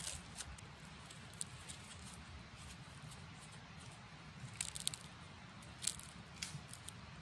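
Aluminium foil crinkling and rustling faintly as it is peeled off a roasted sweet potato, with a few sharper crackles about four and a half to six seconds in, then the soft potato being broken in half.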